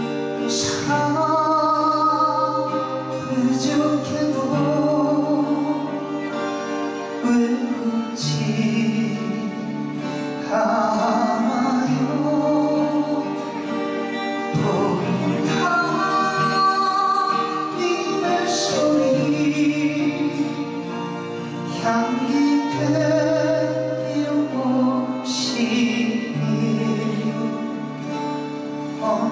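A live praise band plays a slow worship song on acoustic guitar, violin and keyboard over a steady bass line, with singing.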